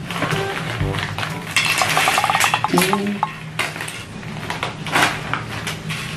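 Crunchy puffed snacks poured from a plastic bag onto a plastic plate, a dense dry rattle lasting about two seconds, followed by scattered clicks as fingers stir through the pile.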